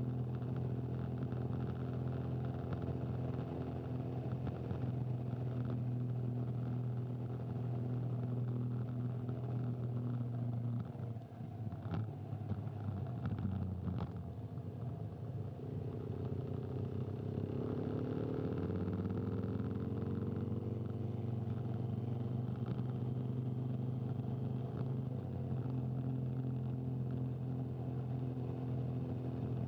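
Motorcycle engine running steadily at low revs close by, easing off briefly just before the middle, with a couple of sharp clicks, then revving up in pitch over a couple of seconds before settling back to a steady run.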